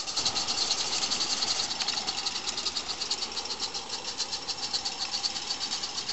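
Live-steam Spur IIm garden-railway locomotive running with its train, the engine and wagons rattling along the track, over steady chirping of insects.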